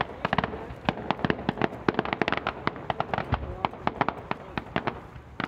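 Fireworks display going off: a rapid, irregular string of sharp pops and crackles, several a second, with a louder pop near the end.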